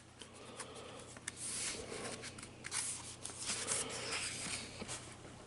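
Paper rustling and crinkling in several bouts, with small clicks, as the pages of a picture book are handled and turned.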